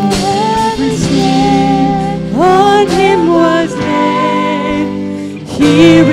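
Church worship band performing a hymn: women singing lead vocals over a Yamaha MOXF8 keyboard and electric guitar.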